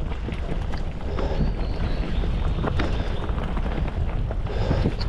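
Hardtail mountain bike ridden along a dirt forest trail: a steady wind rumble on the microphone with the tyres rolling over the ground, and scattered clicks and rattles from the bike.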